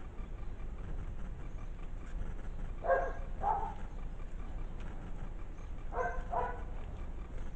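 A dog barking: two pairs of short barks, the first pair about three seconds in and the second about six seconds in, over a steady low rumble.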